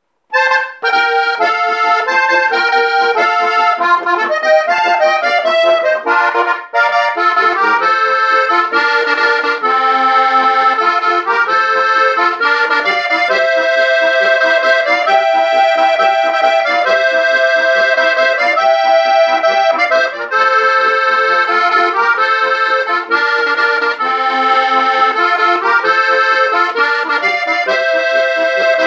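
Steirische Harmonika, a Kärntnerland Styrian diatonic button accordion, playing a tune in chords and melody, with a short break in the playing about six and a half seconds in.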